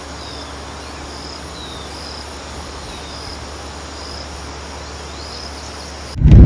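Outdoor ambience: an insect chirping in short, evenly spaced high pulses, about one every 0.7 s, over a low steady hiss. A few short falling notes are scattered through it. Near the end it cuts suddenly to loud vehicle and wind noise.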